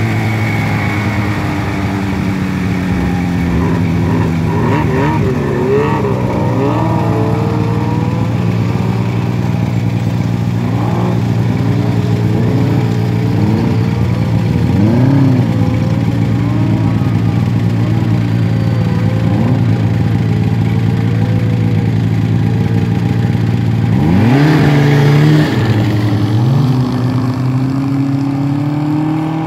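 Snowmobile engines: a turbocharged Yamaha Apex snowmobile climbs the hill, its engine revving up and down, over the steady idle of a sled close by. About 24 seconds in, a sled revs up sharply and loudly.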